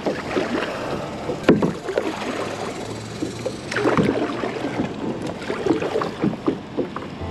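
Kayak paddle strokes: the blade dipping and pulling through the water with splashes and drips, irregular, the two loudest splashes about a second and a half in and around four seconds in.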